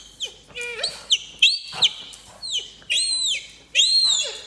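Rubber squeaky toy ball pressed repeatedly under a bare foot, giving a string of high squeaks, each rising and then falling in pitch, about two a second.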